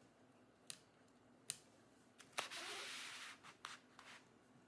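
Faint handling sounds from a plastic pry tool and parts inside an opened laptop: a few light clicks, then a short scraping rustle about halfway through, followed by a couple more clicks.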